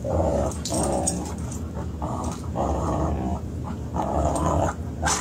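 Dogs play-growling as they wrestle: a string of short, rough growls in about five bouts, with a sharp higher sound near the end.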